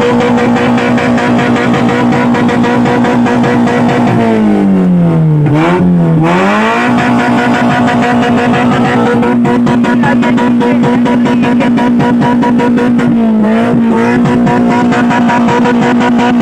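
Car engine revved hard and held at high revs through its exhaust, a steady high note; the revs drop and climb back about five seconds in, and dip briefly again near the end.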